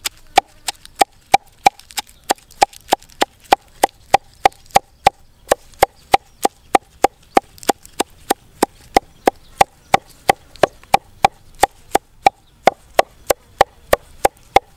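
Cleaver chopping fresh leafy greens on a wooden chopping block: a steady run of sharp chops, about three a second, each with a brief ringing note.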